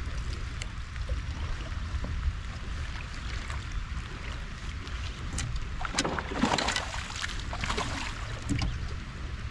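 Steady hiss of rain falling on the lake and boat, over a low rumble of wind on the microphone, with a louder splash about six seconds in.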